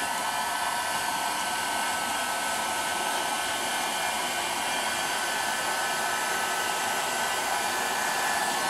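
Handheld heat gun running steadily, its fan blowing hot air with a steady high whine over the rush, used to heat-seal window tint film onto car door glass.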